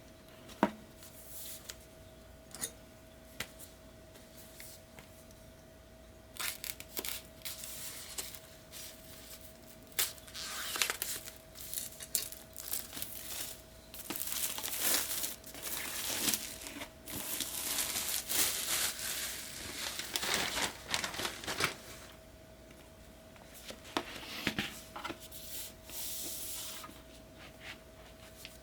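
Packaging being handled and torn open by hand: a few sharp clicks and taps at first, then long stretches of tearing and crinkling, with a steady thin tone underneath.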